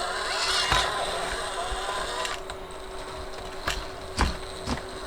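Micro RC crawler's small electric motor and gears whining as it crawls over an obstacle, with a few sharp knocks about four seconds in as the chassis and tires strike the terrain.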